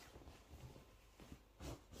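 Near silence: faint room tone with a few soft handling sounds and one brief, slightly louder knock or rustle near the end.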